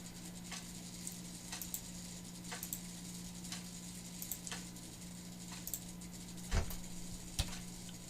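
Computer mouse clicking now and then as sketch points are placed, over a steady low hum, with two louder clicks near the end.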